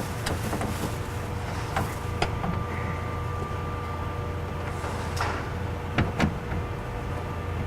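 A few light clicks and knocks from parts and tools being handled inside a car door during window regulator installation, over a steady low hum.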